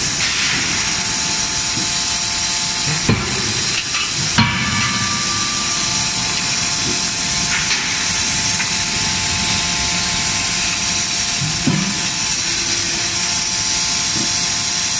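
CNC closed-die forging hammer striking hot steel in its dies: two sharp blows about 3 and 4.5 seconds in and a lighter one near 12 seconds, over a steady hiss.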